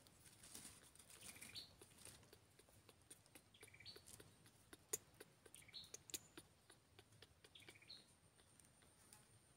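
Near silence, with faint short high chirps repeating about every two seconds and a few light clicks.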